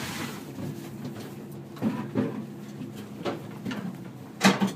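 Boat being hauled out of the water by a tractor, heard from inside the wheelhouse: a steady low rumble with a few short knocks and clunks, the loudest near the end.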